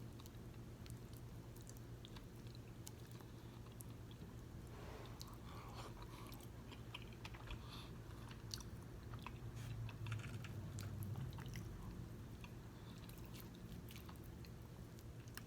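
Close-up chewing of soft fufu and egusi soup, with small wet mouth clicks, over a steady low hum.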